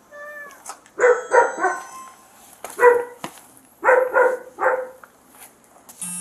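Dog barking in short bursts: three quick barks, a single one, then three more. A brief electronic beep follows near the end.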